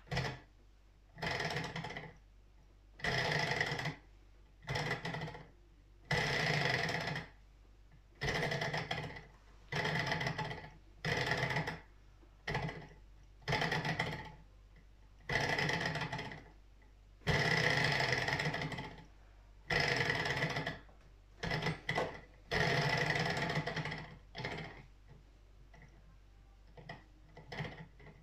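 Model Stirling engine clattering in short bursts of about a second, over and over, as its flywheel is spun by hand. Each time it runs down again. It will not keep running, which the owner thinks may be too little heat from its sunflower-oil burners.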